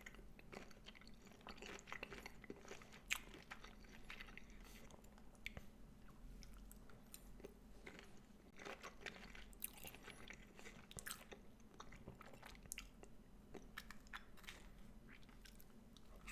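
Faint chewing: soft, irregular mouth clicks and small crunches.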